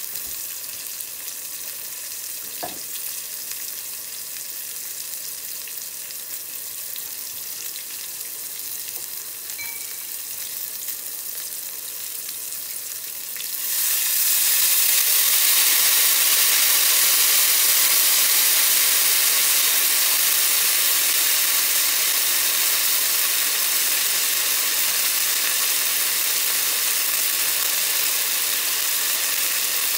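Eggplant pieces sizzling in oil in a frying pan. About 13 seconds in, a thin stream of liquid poured into the hot pan sets off a much louder sizzle that carries on, easing a little toward the end.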